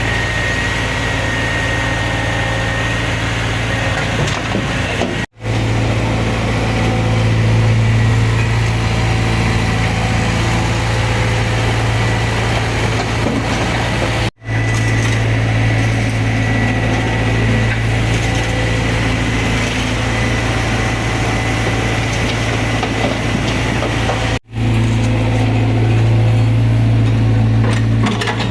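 Excavator's diesel engine running steadily with a strong low hum. The sound drops out for a split second three times, about ten seconds apart.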